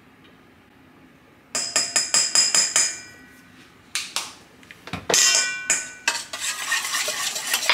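Metal measuring spoons clinking against each other and against a stainless steel mixing bowl: a quick run of bright, ringing clinks about a second and a half in, a few more around the middle, then denser clinking and scraping near the end.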